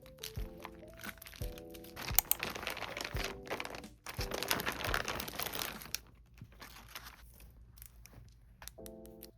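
Plastic packaging crinkling and rustling as it is handled, densest from about two to six seconds in, with scattered clicks. Soft background music plays under it.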